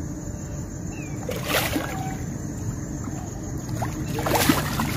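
Water splashing and sloshing as a hooked fish thrashes at the surface close to the bank, with two louder splashes, about a second and a half in and near the end.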